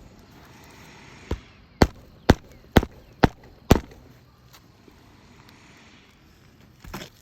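Hammer driving roofing nails through asphalt shingles: six sharp strikes about two per second, starting about a second in, then a fainter knock near the end.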